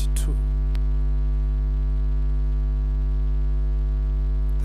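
Loud, steady electrical mains hum in the recording, a low buzz with many evenly spaced overtones, with a single keyboard click about three-quarters of a second in.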